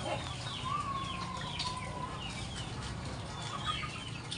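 Chickens clucking, with many short falling chirps and one longer drawn-out call about a second in.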